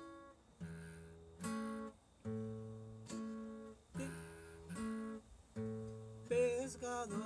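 Acoustic guitar strumming chords, one strum roughly every second, each chord left to ring, in the instrumental gap of a sung hymn.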